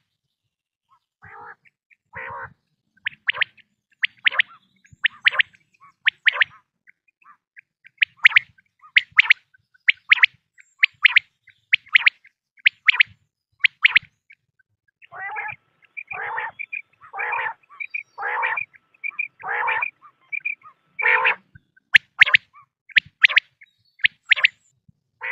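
Quail calling: short, sharp, high calls repeated about once a second. About fifteen seconds in they give way to a run of longer, lower, harsher calls, about one a second, before the sharp calls return near the end.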